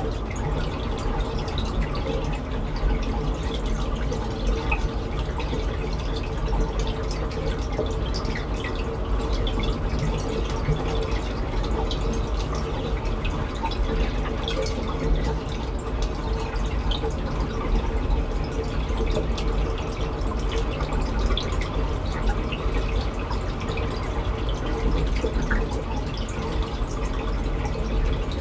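Aquarium water trickling and dripping steadily, with many small splashes and a steady hum underneath.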